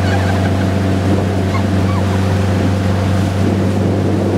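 Motorboat engine running steadily at towing speed, a constant low hum, over the rush of the churning wake behind the boat.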